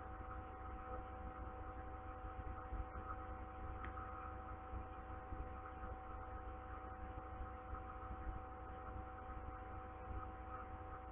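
Steady background hum made of several held tones over a low rumble, unchanging throughout, with no other distinct sound.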